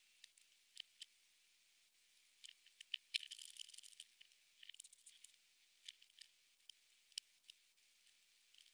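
Praying mantis chewing a locust: faint, irregular crisp clicks and crackles of its mouthparts crunching, with a denser run of crackling a little after three seconds in.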